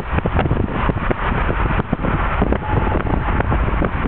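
Steady road and engine noise of a car driving on a highway, with frequent irregular buffeting thumps on the microphone.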